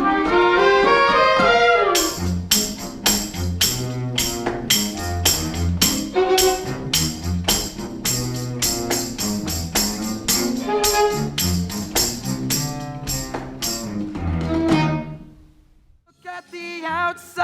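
Pit orchestra playing an up-tempo instrumental passage for a stage musical. It opens with a quick rising run of notes, then settles into a steady beat of percussion hits over a bass line and chords, and stops about fifteen seconds in.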